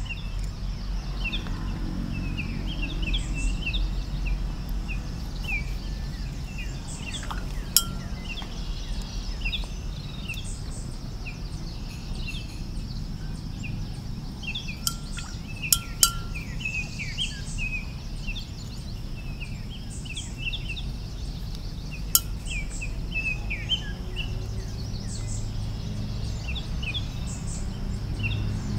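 Small birds chirping in many short high notes throughout, with a few sharp clicks, over a low steady hum.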